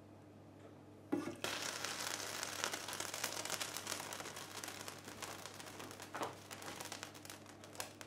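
Hot water splashing and dripping back into a stainless steel pot as a softened Kydex cheek rest is lifted out of it: a knock against the pot about a second in, then a dense patter of drips that slowly thins out.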